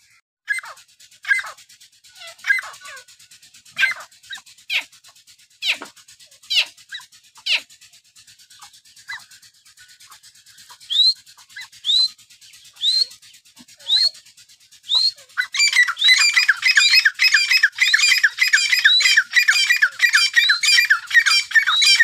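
Caged francolins (teetar) calling. Sharp single calls come about once a second, then from around two-thirds of the way in they turn into a loud, rapid run of repeated notes.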